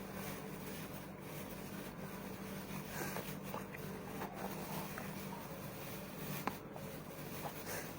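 Quiet eating sounds: a few light clicks and taps, spread unevenly, over a steady low hum.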